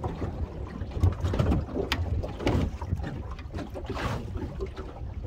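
Wind buffeting the microphone over the low wash of water around a small boat, with a scatter of sharp knocks and clatters, the loudest about a second in.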